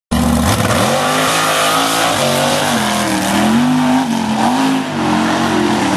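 Off-road race truck's engine at hard throttle, its pitch rising and falling several times as it revs and pulls, over a hiss of tyres and dirt.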